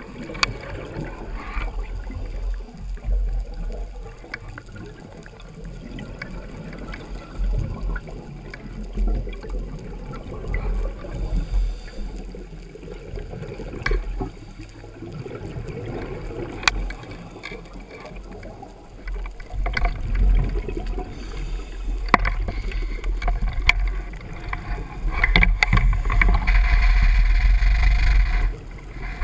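Underwater ambience heard through a camera's waterproof housing: a steady low rushing of moving water with scattered sharp clicks and knocks. About 25 seconds in the noise grows louder and fuller for about three seconds, then drops away.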